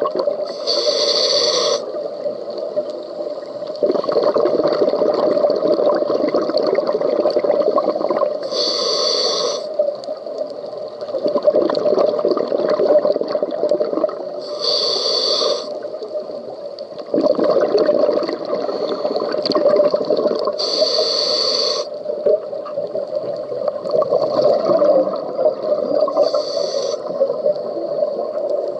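Scuba diver breathing through a regulator underwater: a short hiss of inhaled air about every six seconds, each followed by a few seconds of bubbling exhaled air, over a steady hum.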